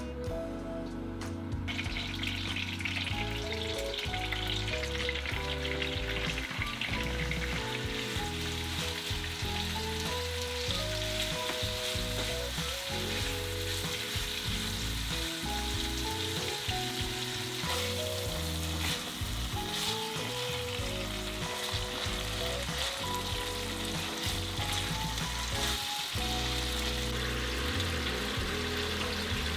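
Ground meat sizzling as it fries in a frying pan over a gas flame. The sizzle starts about two seconds in and continues steadily over soft background music.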